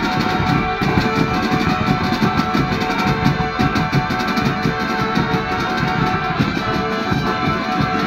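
Marching drum band playing: snare and bass drums beating a fast, dense rhythm with cymbal crashes, and steady held notes sounding over the drumming.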